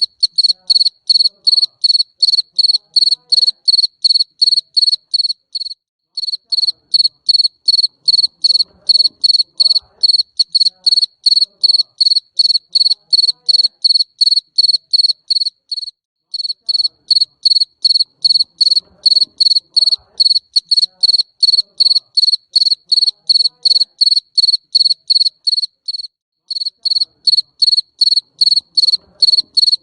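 A jangkrik mbering cricket chirping loudly and steadily, about three shrill chirps a second, with a brief pause roughly every ten seconds.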